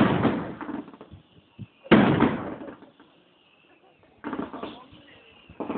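Fireworks bursting: a sharp bang at the start, another about two seconds in, and a softer burst about four seconds in, each dying away over about a second.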